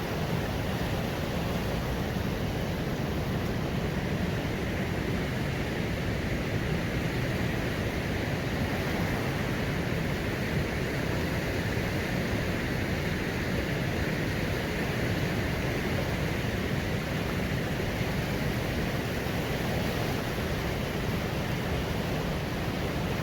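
River water rushing over the rapids by a mill, in a steady, unbroken rush of white water.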